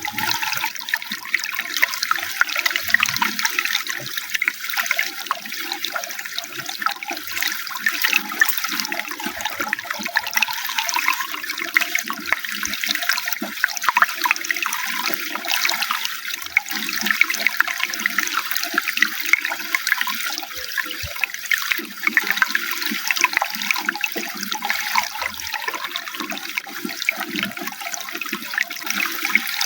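Running water splashing and gurgling steadily, with no breaks.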